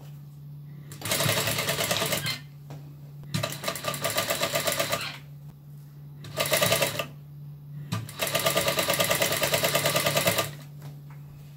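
Frister+Rossmann FR101M industrial sewing machine stitching crinoline onto tulle in four short runs of rapid, even needle clatter with pauses between, over a steady low hum.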